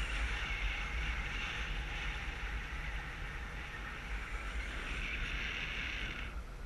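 Steady wind noise on a GoPro's microphone from the airflow of paraglider flight, with a low rumble; the higher hiss drops away about six seconds in.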